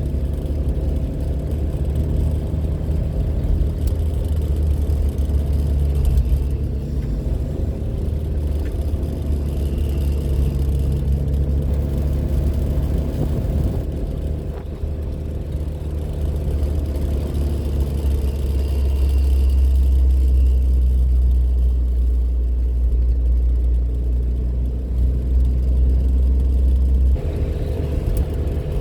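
MG Midget's engine and road noise under way, heard inside the cabin with the soft top up: a steady low drone that eases off about halfway, builds again, and changes suddenly near the end.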